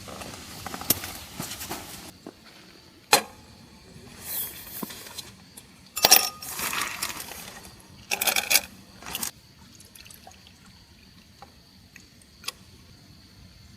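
Glass and tableware clinking, with a few short splashy rushes of liquid being poured or handled in between; sharp knocks about three and six seconds in, then a few quieter taps.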